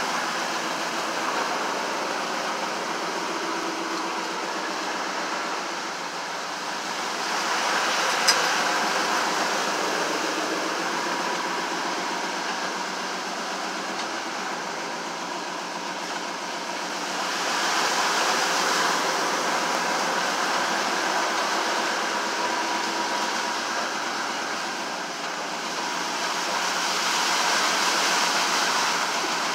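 Engine of an off-road vehicle running as it drives through floodwater, heard from inside the cab, with water rushing and splashing against the body. The noise swells louder three times.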